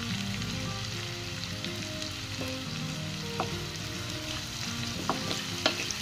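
Chopped onion with green chillies and curry leaves sizzling steadily in hot oil in a kadhai as it is stirred with a spatula, with a few sharp clicks in the second half.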